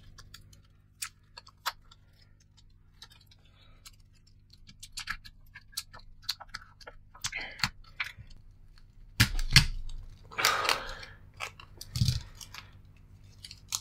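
Small clicks, taps and paper rustling as a jammed sheet of sticker paper is worked out of a Polaroid Zip printer's mechanism by hand. A couple of sharp knocks come about nine seconds in, a louder rustle of the paper just after ten seconds, and another knock near twelve seconds.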